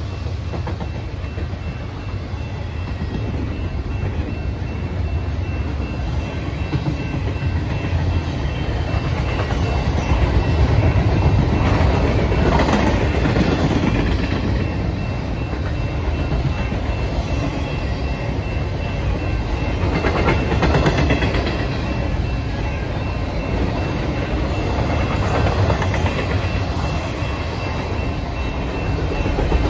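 A BNSF intermodal freight train's double-stack container well cars rolling past close by: a steady rumble of steel wheels on rail with a clickety-clack of the wheels, swelling louder twice.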